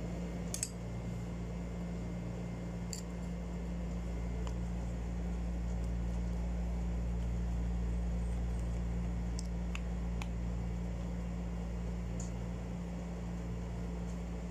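A steady low machine hum, with a handful of faint sharp clicks as a screwdriver works the screws on a spinning reel's metal side plate.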